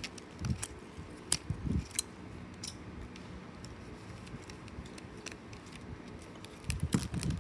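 Handling of a Skittles candy packet: a few sharp clicks over the first two seconds, quiet in the middle, then a short cluster of clicks near the end.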